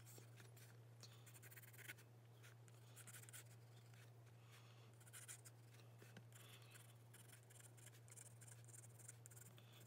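Faint scratching of a graphite pencil drawing lines on paper, in short irregular runs of strokes, over a low steady hum.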